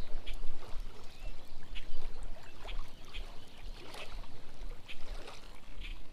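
Topwater duckling lure with a buzz blade being reeled across a river, splashing and gurgling on the surface in small, irregular splashes. Wind rumbles on the microphone underneath.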